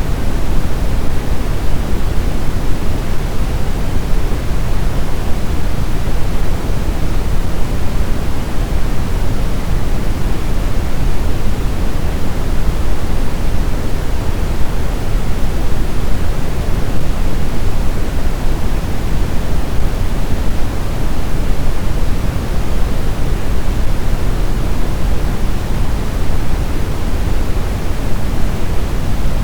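Steady white noise of the kind used as a sleep aid for babies: an unbroken even hiss, heavier in the low end, with no change.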